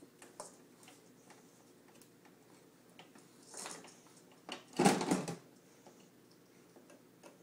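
Light scattered clicks and knocks, with a soft rustle about three and a half seconds in and one loud clatter about five seconds in.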